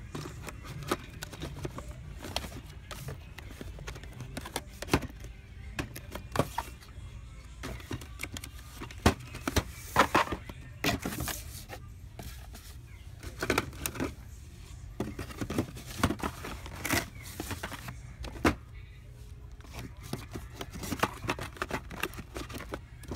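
Boxed diecast model cars in cardboard-and-plastic window packaging being handled and shifted on a shelf: a string of irregular clicks, taps and knocks, busiest in the middle, over a steady low hum and background music.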